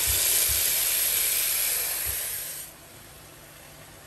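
Tap water pouring into a stainless steel pot of cut potatoes, a steady splashing rush that stops about two and a half seconds in.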